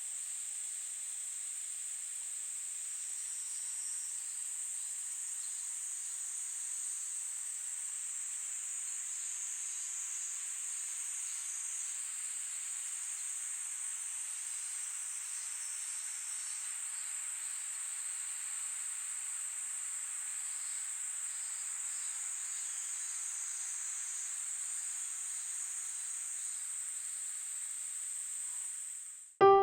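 Insects chirring: a steady, high-pitched drone with fainter calls coming and going over it. It cuts off just at the end.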